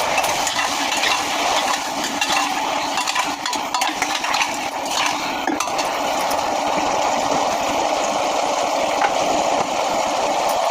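Steady hiss with light metal clinks and scrapes of a spoon stirring in a cooking pan, mostly a couple of seconds in.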